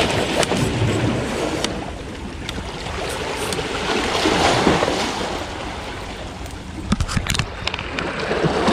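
Small waves washing and lapping over shoreline rocks, a steady wash that swells and eases, with a few sharp clicks about seven seconds in.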